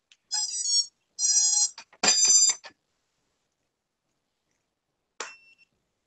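Quadcopter brushless motors sounding the ESC startup tones as the flight battery is plugged in: three short high-pitched beeps of about half a second each, the sign that the speed controllers have powered up. A single short beep follows about five seconds in.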